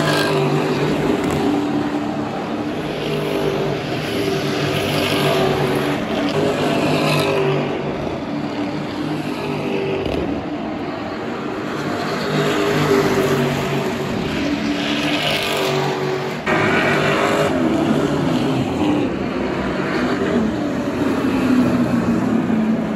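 Several V8 race utes running at low revs together as they roll onto the starting grid, a mixed engine rumble whose pitch wavers up and down with the throttle. It jumps louder about two-thirds of the way through.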